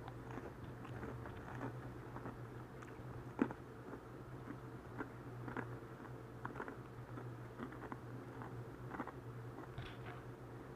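Close-miked chewing of bite-sized shrimp, with soft irregular wet mouth clicks and smacks and one sharper click about three and a half seconds in, over a steady low hum.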